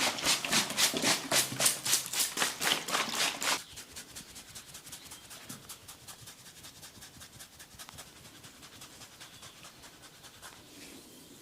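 Rapid, rhythmic hand strikes of a percussive (tapotement) massage, about five a second. They are loud for the first three and a half seconds, then go on much softer.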